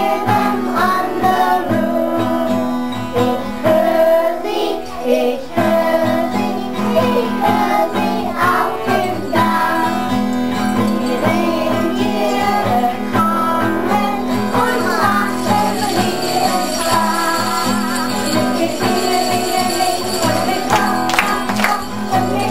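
A group of children shaking small hand-held jingle bells along with a song's music, which has long held low notes.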